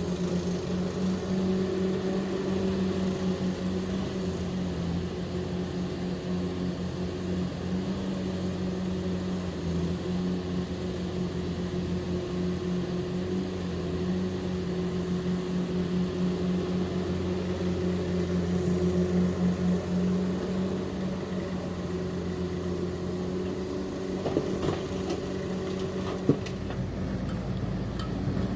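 Heavy diesel engine of construction machinery running steadily at a constant speed, with a sharp click near the end.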